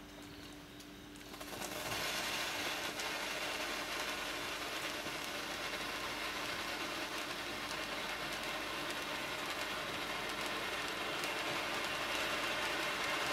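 Crackling volcano firework fountain burning: it starts faint, then about a second and a half in builds to a steady hissing spray dense with small crackling pops from its crackling stars.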